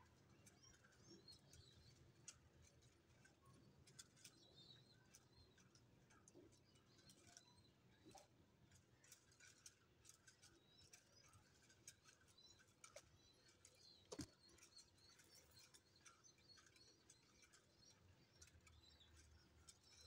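Near silence: faint bird chirps and scattered small ticks, with one slightly louder click about fourteen seconds in.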